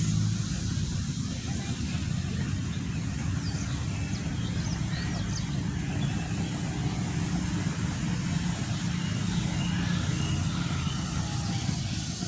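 A steady low motor rumble, like a vehicle engine running, with a few faint high chirps over it.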